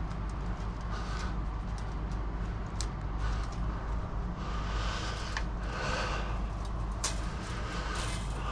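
Chain-link mesh and fence wire being handled and worked by hand: scattered clicks and scraping, with a sharp click about seven seconds in, over a steady low rumble.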